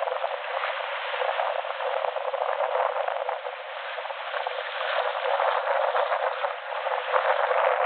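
Wind buffeting the microphone, mixed with water rushing and splashing along the hull of a sailing schooner under way. The noise is steady and gusty, dipping briefly partway through and growing louder near the end.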